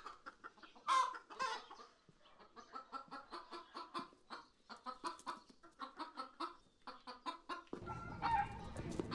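Chicken clucking: a few louder calls in the first second and a half, then a quick run of short clucks, several a second. Room noise comes in near the end.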